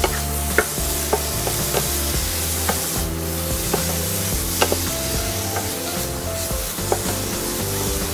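Pork belly pieces sizzling in a hot nonstick frying pan while a wooden spatula stirs and scrapes them around. The spatula knocks against the pan about once a second.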